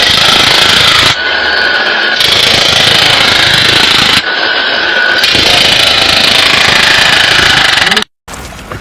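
Loud, harsh power-tool or machinery noise, steady but changing in pitch a few times, that cuts off abruptly about eight seconds in.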